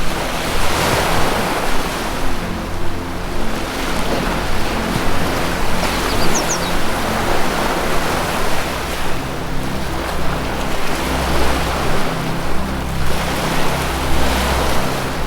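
Ocean surf washing in and out in slow swells over a low, sustained music drone. A brief high bird chirp comes about six seconds in.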